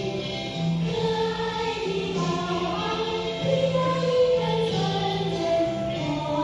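A choir of young children singing a song together over an instrumental accompaniment with sustained low notes.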